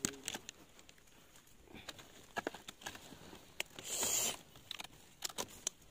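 Leaves and twigs of a wild mango tree rustling and crackling as branches are pushed aside and fruit picked: scattered sharp snaps, with a louder rustle about four seconds in.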